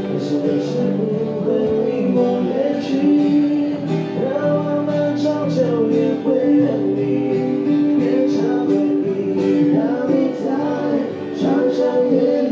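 Music: a song with singing over instruments.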